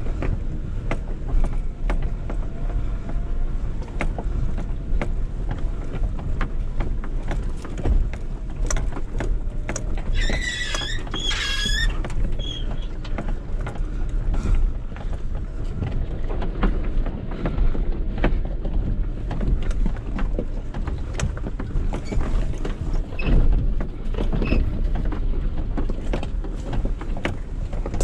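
In-cabin sound of a 2013 Suzuki Jimny's 1328 cc inline-four driving along a rutted dirt track: a steady low engine and road rumble with frequent knocks and rattles from the body and suspension. About ten seconds in come two short, high, warbling chirps.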